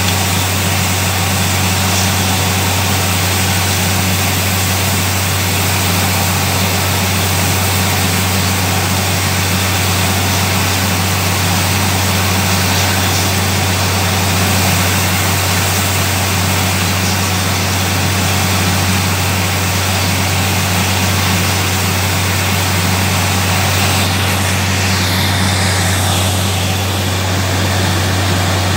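Borewell drilling rig's engine and air compressor running with a steady low drone, while compressed air blows groundwater out of the bore in a continuous gushing spray: the bore has struck water.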